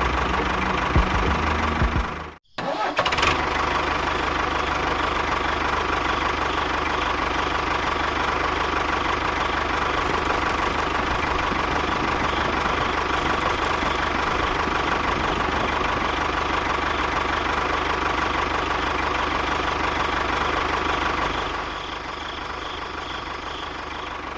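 A small motor running steadily with a whining tone, briefly cut off about two seconds in and then resuming, and a little quieter near the end.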